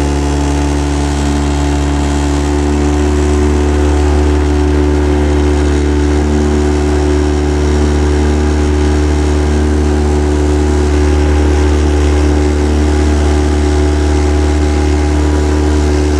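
Boat motor running steadily at an even, unchanging pitch, loud throughout.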